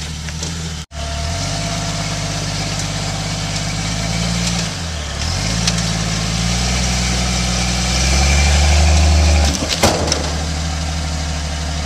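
Modified Jeep rock crawler's engine pulling under load as it climbs a boulder, the revs dipping and rising and at their loudest just before a sharp clunk about ten seconds in, then dropping back to a lower run.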